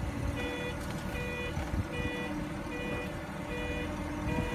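A vehicle's reversing alarm beeping steadily, about one beep every 0.8 seconds, over a low rumble: the machine moving the hoisted engine is backing up.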